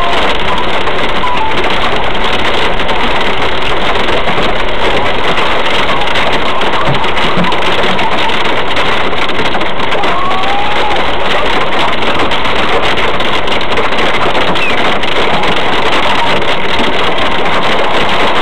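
Hail and heavy rain pelting a car's roof and windshield, heard from inside the cabin as a loud, unbroken clatter and hiss.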